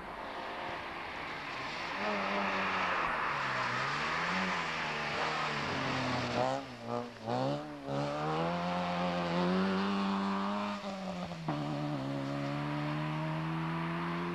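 Rally car engine revving hard through the gears on a stage. The pitch climbs, falls back at each gear change or lift, and climbs again, with the note dropping out briefly a few times around the middle.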